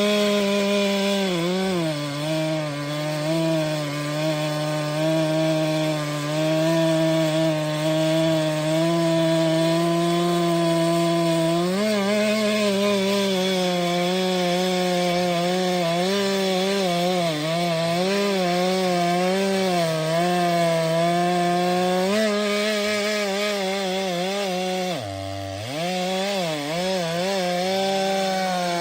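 Stihl MS 462 C-M two-stroke chainsaw running at high revs while cutting firewood, its pitch wavering and sagging as the chain loads up in the wood. About 25 seconds in, the revs drop sharply for a moment and then climb back up.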